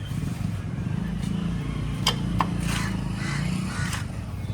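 Motorcycle engine running at a steady idle, with two sharp clicks a little after two seconds in. The owner suspects an unusual noise from the engine side points to a serious engine problem.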